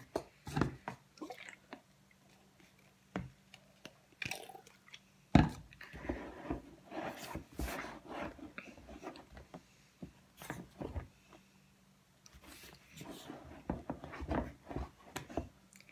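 Wooden spoon stirring thick shaving-cream slime in a bowl: irregular squishing and scraping strokes, with the spoon knocking against the bowl, one sharp knock about five seconds in. The slime is thickening as contact solution is worked in.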